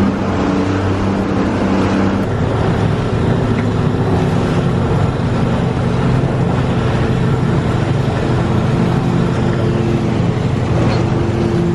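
A small boat's motor running steadily while under way, with a hiss of wind and water over it. The engine note drops slightly about two seconds in.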